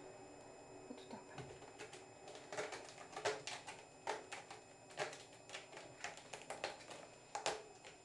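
A kitten's claws picking and scratching at the sisal rope of a cat-tree post: irregular scratchy clicks, starting about a second in and stopping just before the end.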